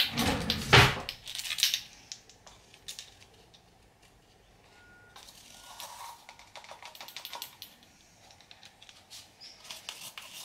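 A baking powder tin being handled: a few loud knocks and clatters, then a run of quick, light clicks and taps as powder is tapped out of the tin into the batter bowl.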